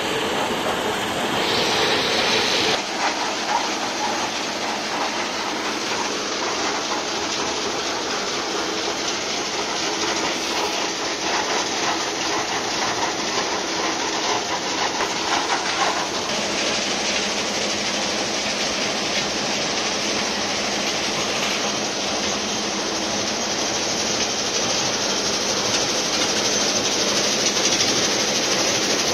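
Puzzolana stone crusher plant running: a steady mechanical din, with crushed stone rattling as it pours off the end of a conveyor belt.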